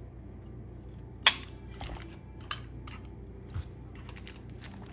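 Handling noise as a pistol is set down into a foam-lined plastic hard case: one sharp click about a second in, then a few light clicks and taps.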